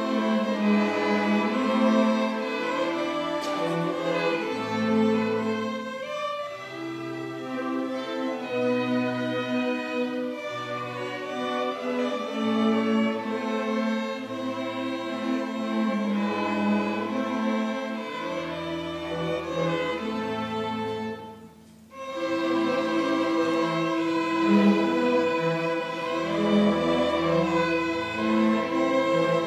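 Orchestra's string section, violins and cellos, playing a passage of a symphony, with the low strings moving in a steady note-by-note rhythm under the higher parts. The music drops away briefly about two-thirds of the way through, then comes back in on a held chord.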